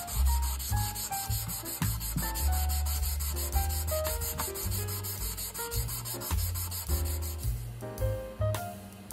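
Rhythmic rubbing of sanding strokes over background music with a bass line and piano-like notes. The sanding stops about seven seconds in, leaving the music.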